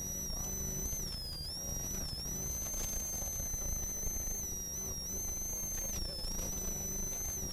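Ford Sierra RS Cosworth rally car's turbocharged four-cylinder engine under hard acceleration, heard from inside the cockpit, with a loud high whine over the engine note that dips and recovers a few times as the driver lifts and shifts.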